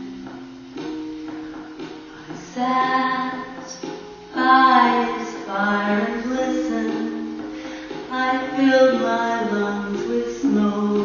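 A song: a woman singing into a microphone over recorded backing music.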